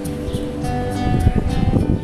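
Live music from a street musician: held notes give way, about halfway through, to a quick run of short, sharply struck notes.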